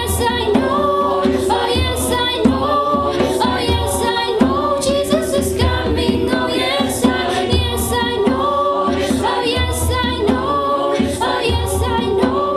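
Mixed student choir singing a cappella, one girl's voice carried on a handheld microphone over the choir, with a low beat about once a second.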